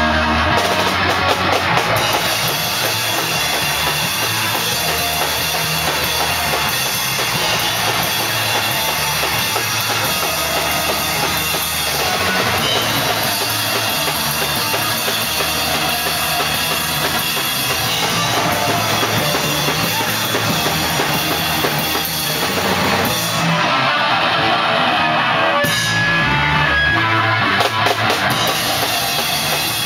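A band playing raw, noisy black metal hardcore live, with drum kit, bass drum and cymbals close and loud over guitar.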